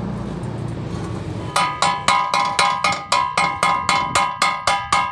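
Hammer striking steel tubing in a fast even run, about four blows a second, each blow leaving the metal ringing. The blows begin after about a second and a half of steady rushing noise.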